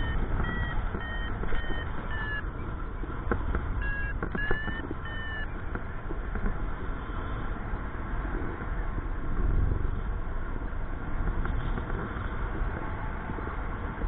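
Paragliding variometer beeping, short beeps about two a second in two runs during the first half, the pitch gliding slightly: the vario's climb tone, signalling rising air. Under it, wind rushes steadily over the microphone.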